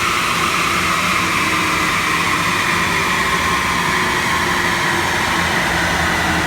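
Car engine running steadily, with a high whine that slowly falls in pitch.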